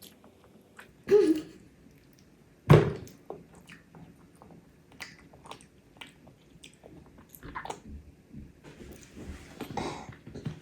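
A child chewing and biting food close to the microphone: many small wet clicks and smacks, with one loud sharp sound nearly three seconds in.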